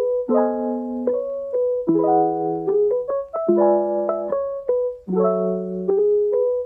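Background music played on a piano-like keyboard: chords over a low bass note, changing about every second and a half, with short melody notes between.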